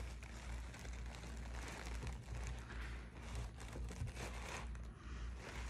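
Faint eating sounds: small crackles and wet clicks of a person chewing and taking food from a bowl.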